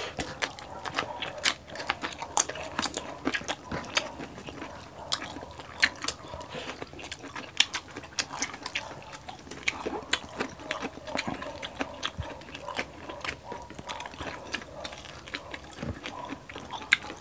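Dogs barking in the background over close eating sounds: crunching bites of crispy pork belly and chewing, with many sharp crackles throughout.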